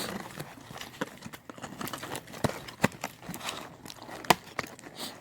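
Irregular sharp clicks, taps and crinkles of a takeout container and its packaging being handled, as fries are put in and covered, with a few louder knocks.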